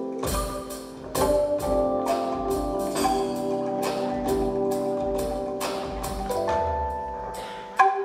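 Live ensemble music led by a calung renteng, Sundanese tuned bamboo tubes struck with a mallet, playing a quick run of ringing notes over a bass guitar line. A sharp, loud strike comes near the end.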